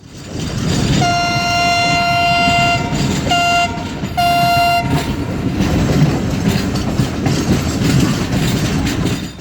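Train running over the tracks with a steady rumbling clatter, while the diesel locomotive's horn sounds one long blast of about two seconds and then two short ones.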